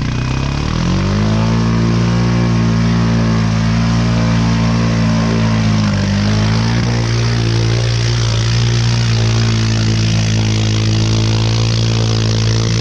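ATV engine revving up and held at high revs, working hard through deep mud, with a brief dip and recovery about six seconds in.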